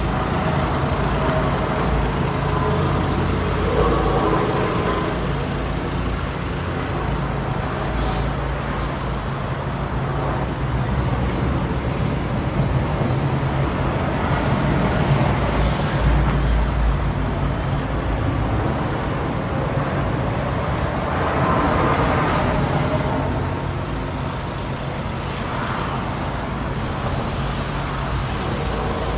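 A steady low droning hum over a wash of distant traffic-like noise, with groaning mid-pitched tones that swell and fade twice, about four seconds in and again past twenty seconds. It is the kind of unexplained outdoor drone reported as a 'strange sound from the sky'.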